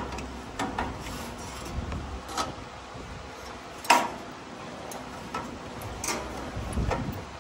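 Irregular sharp clicks and clinks of hand tools and parts being handled, with one louder snap about four seconds in.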